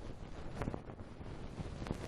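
Ear-cleaning tool scraping and rubbing right against the microphone: a continuous crackly, scratchy rustle dotted with small clicks.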